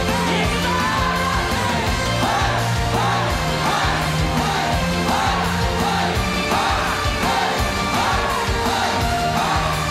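Live pop music: a band playing with male vocalists singing and shouting over a steady bass line.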